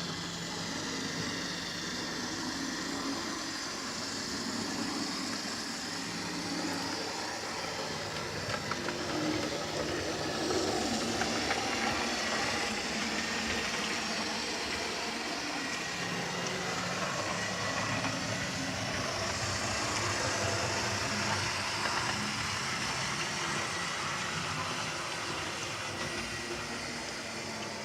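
British Rail Class 47 diesel locomotive's Sulzer twin-bank V12 engine running with a steady low hum, with a few sharp clicks about halfway through.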